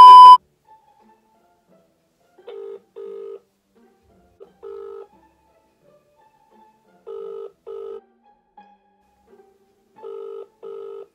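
A loud, steady, high test-tone beep over the colour-bar cut, stopping less than half a second in. Then a phone on speaker rings out unanswered with a double-ring ringback tone: short low tones, mostly in pairs, repeating every two to three seconds.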